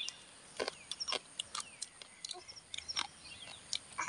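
Close-up chewing and crunching of roasted freshwater crabs: a scattering of sharp, short crunches and mouth clicks. Birds chirp faintly in the background.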